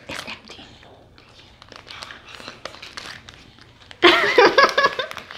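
Snack bar wrapper crinkling as it is peeled open and handled, in short crackles. About four seconds in a voice comes in over it, louder.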